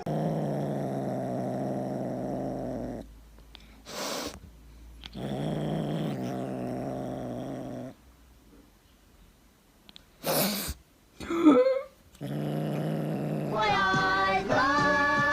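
A cat growling in long, steady, low stretches of a few seconds each, broken by pauses and a couple of short sharp noises; the last growl near the end is louder and higher.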